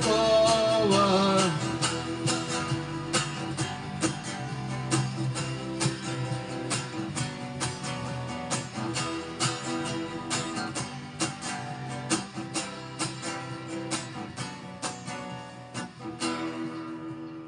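Song outro: a last sung note trails off in the first second or so, then strummed acoustic guitar plays on in an even rhythm and fades near the end.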